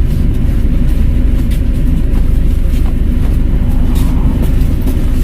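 Volvo B5LH hybrid double-decker bus's four-cylinder diesel engine running under way with a steady, loud low rumble, with light rattles and clicks over it.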